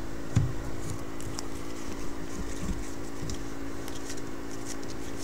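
Trading cards being handled and flipped through by hand: faint papery flicks and rustles over a steady low electrical hum, with a soft knock about half a second in.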